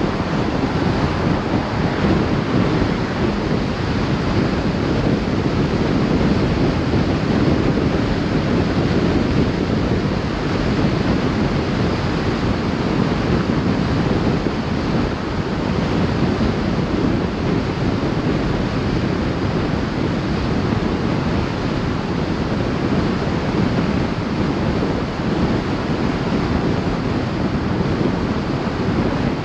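Steady rush of tyre and wind noise from a vehicle driving at speed on concrete pavement, with wind buffeting the microphone.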